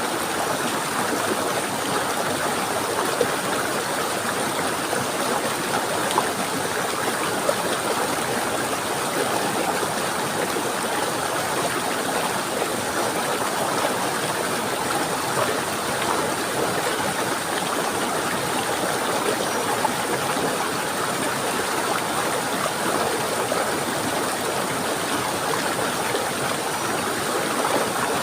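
Flowing water of a stream or small waterfall, a steady rushing and gurgling with a few brief louder splashes.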